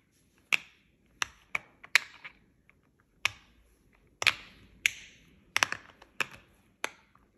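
Small silicone poppet fidget toys being handled and popped: about a dozen sharp clicks and pops at uneven intervals, a few followed by a brief rustle.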